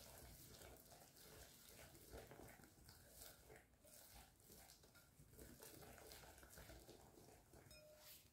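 Faint repeated strokes of a wire whisk in a glass bowl, beating egg yolks, sugar and cornstarch into a thick paste.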